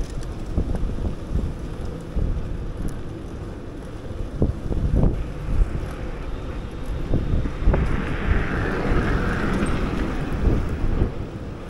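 Wind buffeting the action camera's microphone while riding a bike, a steady low rumble broken by short thumps. A rushing hiss swells about two-thirds of the way through.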